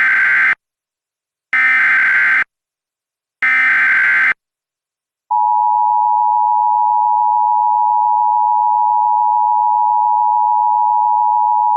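Emergency Alert System SAME header: three one-second bursts of screechy digital data tones, a second apart. After a brief gap, about five seconds in, a single steady attention tone begins and holds.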